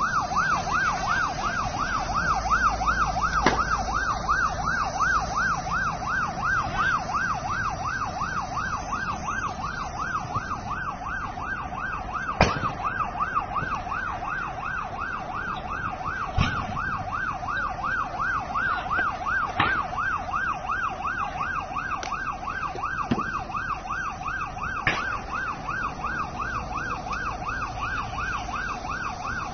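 Emergency-vehicle siren in a fast yelp, its pitch rising and falling rapidly and without a break, with a few sharp pops, the loudest about twelve seconds in.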